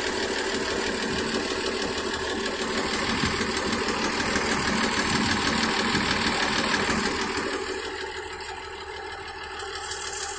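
The Bedford 300 cubic inch petrol engine of a 1976 SB3 bus idling steadily, heard up close. It drops a little in level for a moment about eight seconds in, then comes back up.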